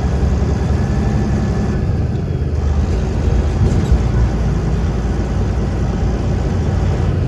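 Freightliner semi truck's diesel engine running steadily, heard from inside the cab as a deep, even rumble.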